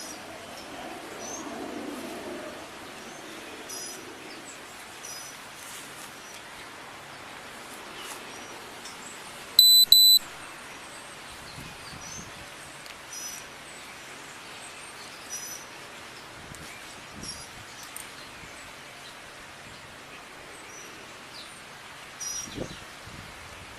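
Birds chirping in short, repeated calls over a steady outdoor background hiss, with a loud double electronic beep about ten seconds in.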